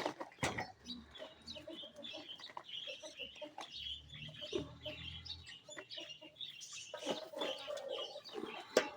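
Domestic hens clucking softly as they forage, with busy high-pitched chirping running through it and a few sharp knocks.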